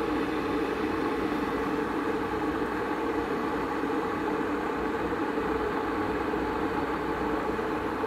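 Electric kettle at the boil: a steady rushing, rumbling noise of bubbling water inside the kettle.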